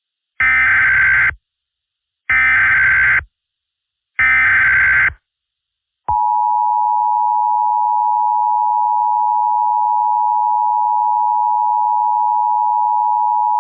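Emergency Alert System broadcast tones: three SAME header data bursts, each about a second long with a second's gap, then the steady two-tone EAS attention signal starting about six seconds in and held for about eight seconds. They open an Emergency Action Termination (all-clear) message.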